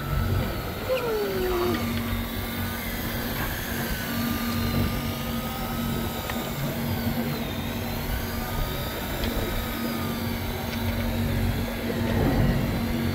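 Steady low drone of the boat's engine, with the thin whine of a Daiwa electric fishing reel's motor winding in line. The whine wavers slowly up and down in pitch as the fish pulls against it.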